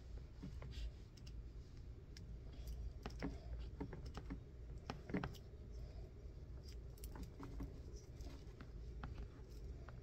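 Faint, scattered small clicks and rustles of fingers handling the end of a shielded Cat 6 cable while it is prepared for termination, the sharpest click about halfway through. A steady low hum runs underneath.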